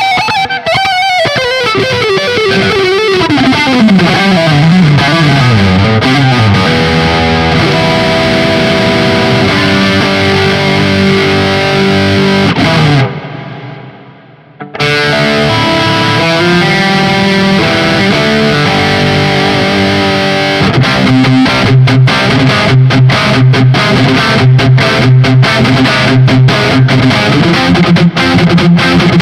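Hofner 4575 electric guitar played through distortion: a lead line sliding down in pitch at the start, then held notes and chords, a brief break about 13 seconds in, and rhythmic chord strumming from about 21 seconds on.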